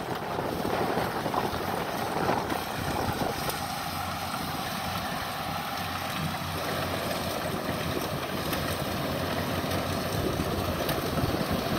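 Distant Kubota DC70 rice combine harvester's diesel engine running steadily, with wind buffeting the microphone.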